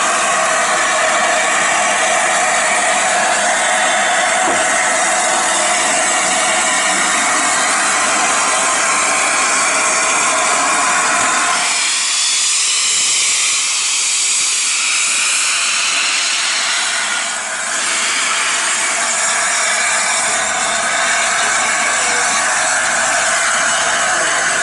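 Steady loud hiss of steam escaping from the LNER A4 Pacific steam locomotive Sir Nigel Gresley as it stands, its tone shifting about halfway through.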